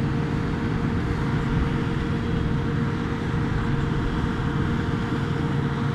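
Steady engine hum from the idling Uragan multiple rocket launcher trucks: a constant low drone with a steady higher tone over it.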